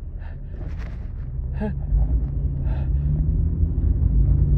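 Car engine and road rumble inside the cabin, growing louder with a slowly rising hum from about two seconds in as the car picks up speed. A person gives three short voiced gasps, about a second apart, and there is one breathy sniff between the first two.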